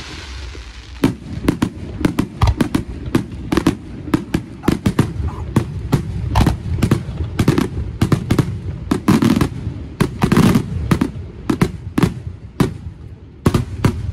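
Fireworks display: aerial fireworks bursting in a rapid, irregular string of sharp bangs, several a second. They start about a second in and run on without a pause.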